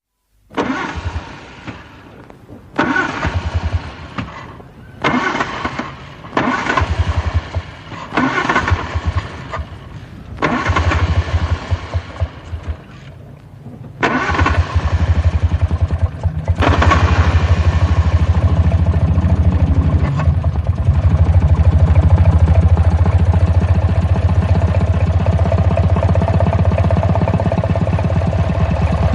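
A 1940s car engine being cranked by its starter in several short, separate attempts. About halfway through it catches and keeps running, settling into a steady idle.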